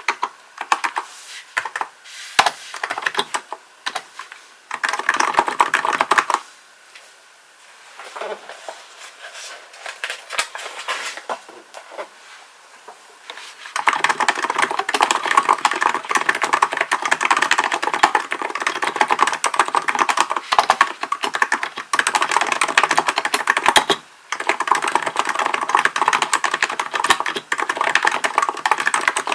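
Keystrokes on a Hansung GK898B electrostatic capacitive (non-contact) keyboard. Typing is scattered and halting at first, then becomes steady, fast typing about halfway through, with one brief pause later on.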